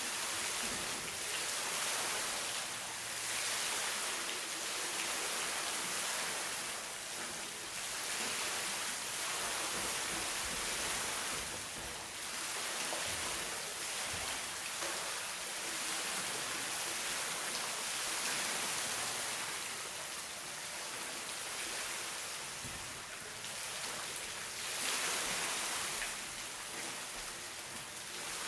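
Steady rushing hiss of water in a forest, swelling and easing every few seconds.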